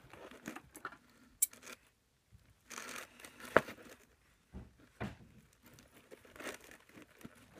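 Clear plastic wrapping around a package of baby clothes being torn open and crinkled by hand: irregular rustles with short pauses and one sharp snap a little past halfway.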